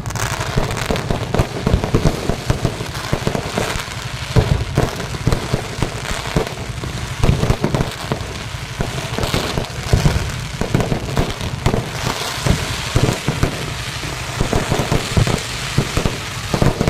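Fireworks display going off in an unbroken run of bangs and crackles, many shots overlapping with a steady crackling haze between them.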